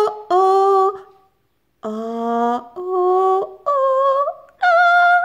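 A woman singing an improvised tune on single 'oh' and 'ah' vowels: about six short held notes, each at a different pitch, some high, with a brief pause near the middle.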